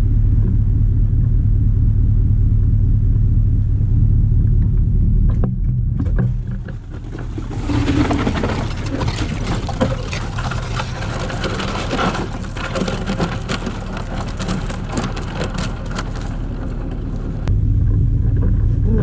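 Boat's outboard motor running with a steady low hum; from about seven seconds in until about sixteen, quarter-inch ice crunching and crackling against the hull as the boat breaks through it, the motor then quieter underneath.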